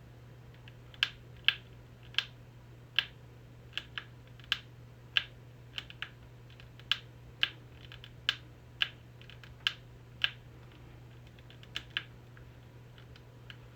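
About twenty sharp, separate clicks at an uneven pace of one or two a second, like small switches on a handheld electronic prop being pressed over and over, over a faint steady low hum.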